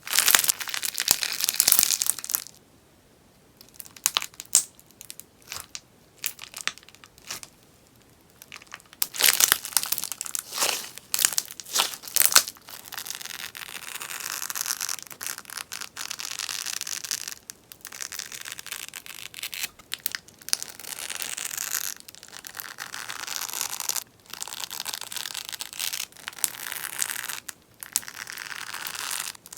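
Crackly beeswax slime crackling and popping. Clusters of sharp pops come through the first dozen seconds, with a brief lull about three seconds in. After that the crackling is denser and comes in stretches of a second or two, separated by short pauses.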